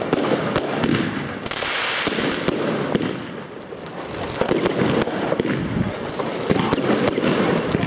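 Fireworks going off in quick succession: many sharp pops and crackling from crackling stars, with a dense burst of hiss about two seconds in.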